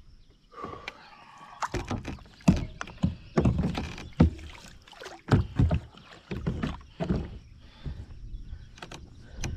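Kayak paddling: irregular paddle splashes and hollow knocks of the paddle and gear against the kayak hull, several sharp ones among them.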